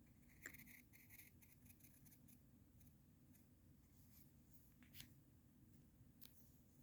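Faint scratching of a drawing tool on paper: a quick run of short strokes in the first couple of seconds, then two single sharp clicks, about five and six seconds in.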